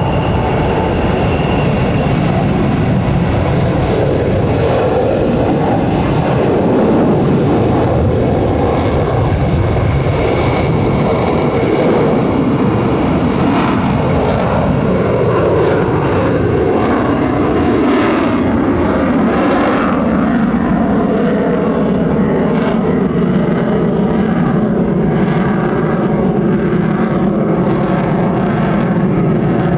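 Lockheed Martin F-22 Raptor's twin Pratt & Whitney F119 turbofan jet engines, loud and steady, with several tones that sweep downward in pitch through the middle.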